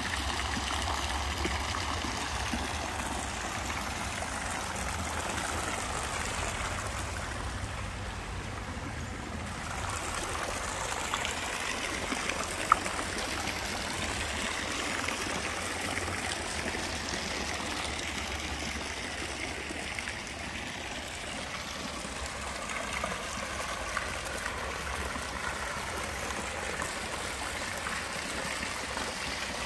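Pool deck jets splashing arcs of water into a swimming pool: a steady trickling and splashing. There is a single sharp click about thirteen seconds in.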